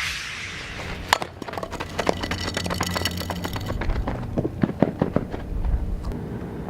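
A steady low rumble with many sharp knocks and clicks scattered through it, the loudest about a second in.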